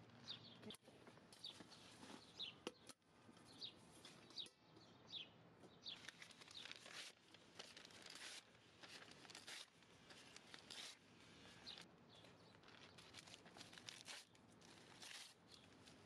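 Newspaper and paper scraps being torn and handled by a gloved hand and dropped over food scraps in a worm compost bin: faint rustling and tearing, a few strokes at first, then a dense run from about six seconds in. Small birds chirp now and then in the background.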